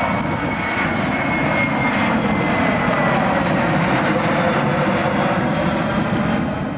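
Jet airliner's engines flying over: a steady loud rush with a high whine that slowly falls in pitch.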